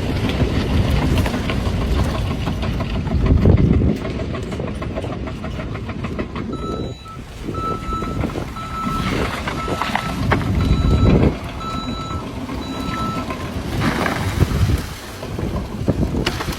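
Backup alarm of a heavy truck beeping about once a second over loud, rumbling engine and machinery noise, the sign of the truck reversing. The beeping starts a little before halfway through and stops a few seconds before the end.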